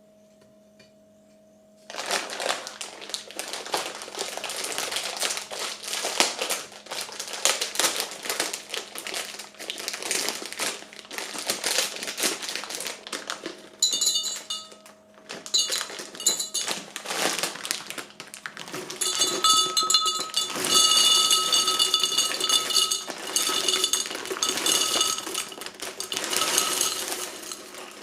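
Household objects being handled and set down: a busy clatter and rustle that starts about two seconds in, turning to ringing clinks of dishes or glassware in the second half. A faint steady hum sits underneath.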